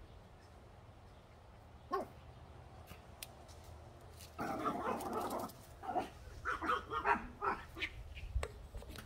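Small dogs barking: a burst of yapping starts about four and a half seconds in, followed by a string of quick, sharp barks. A single short knock comes about two seconds in.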